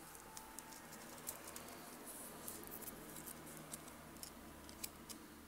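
Faint handling sounds: clear plastic protective film and a tag on a thin thread being pulled off a watch strap's buckle by hand, with many small sharp clicks and crinkles.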